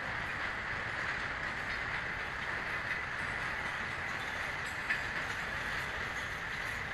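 Container wagons of a goods train running past, a steady rolling rattle of wheels on the rails. A single sharp click comes about five seconds in.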